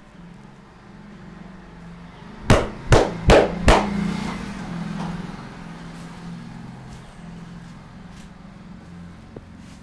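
Four hard hand slaps from a barber's chair massage, in quick succession about half a second apart, a few seconds in.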